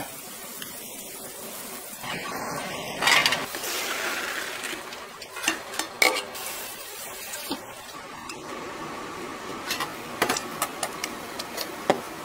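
Metal spoons and stainless-steel bowls and strainers clinking during food preparation: a scattered run of sharp clinks. A rushing hiss runs from about two seconds in until about eight seconds in.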